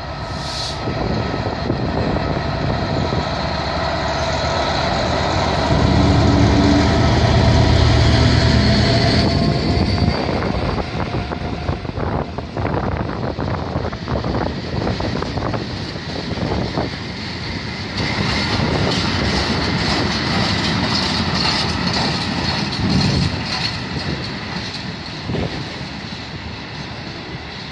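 Class 66 diesel freight locomotive passing with its EMD two-stroke V12 engine running, loudest some six to ten seconds in as it goes by. A long rake of covered wagons follows, wheels clattering and knocking over the rail joints.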